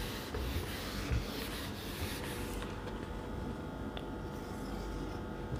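Whiteboard eraser rubbing across the board, wiping off a marker drawing. The hissy scrubbing lasts about two and a half seconds, then it goes quieter.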